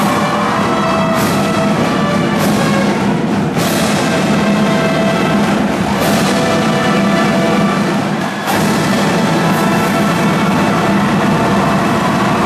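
Brass band with a drumline playing loudly: trumpets, trombones and sousaphones holding notes over snare and bass drums, with sharp cymbal and drum hits every few seconds.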